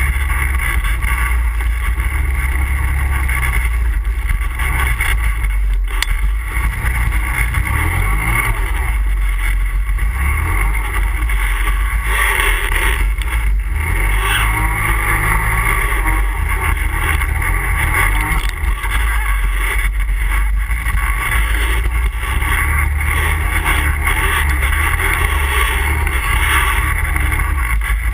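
ATV engine running steadily under way, a continuous loud mechanical drone with a heavy low rumble.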